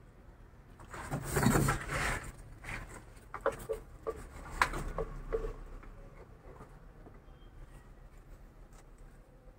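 Handling noise as a PPR pipe-fusion tool is brought up and set against a plastic pipe fitting: a rustling scrape about a second in, then a run of sharp clicks and knocks, then quieter.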